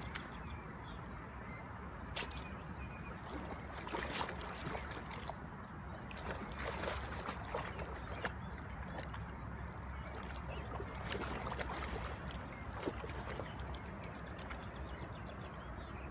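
Lake water sloshing and splashing around a flat-coated retriever wading chest-deep and ducking its head under, in small irregular splashes.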